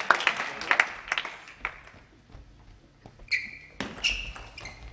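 Clapping dies away over the first second or two. After a short lull, a table tennis rally starts about three seconds in: sharp clicks of the plastic ball off the bats and table, with short squeaks of shoes on the court floor.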